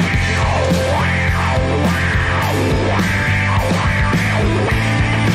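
Loud rock backing music, steady throughout.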